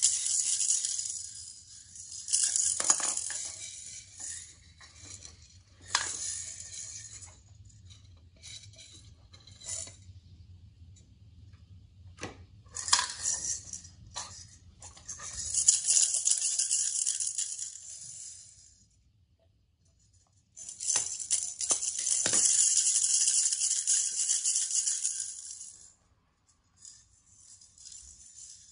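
A pair of small plastic toy maracas shaken by a toddler, rattling in several bouts of a few seconds each with short pauses between. A few sharp knocks mark the bouts.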